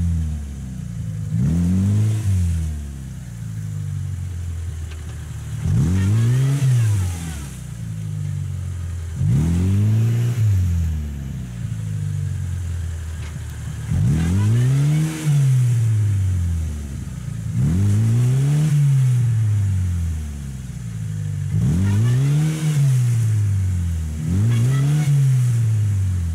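Lada 4x4 (Niva) four-cylinder engine revving up and dropping back again and again, about every three seconds. The car is bogged in a muddy ditch, and the revs are the driver trying to rock it free.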